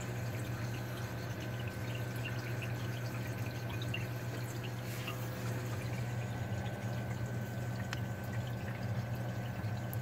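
Water splashing and dripping in a saltwater aquarium sump over a steady low pump hum, with scattered small drips.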